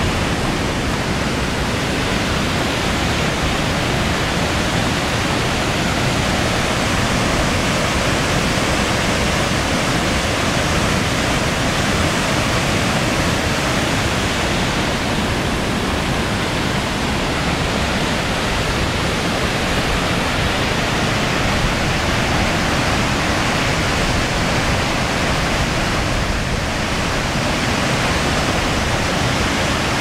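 Steady, loud rush of a mountain river tumbling over rocks, white water spilling into a pool.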